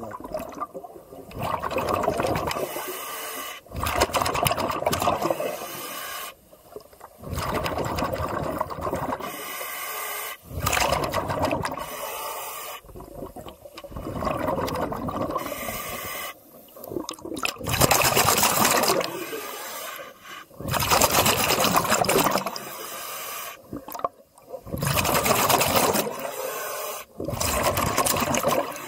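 A scuba diver's exhaled air bubbling out of the regulator underwater, a gurgling rush of bubbles that comes and goes about every two to three seconds with each breath.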